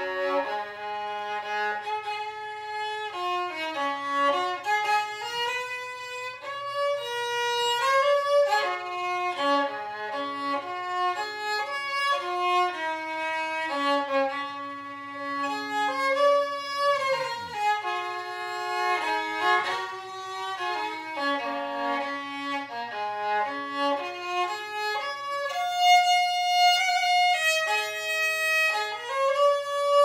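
Solo violin playing a slow melody, notes changing step by step with slides between some of them.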